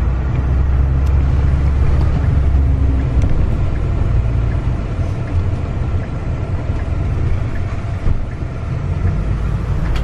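Cabin noise inside a moving shuttle minibus: a steady low engine and road rumble. The rumble eases a little about three seconds in.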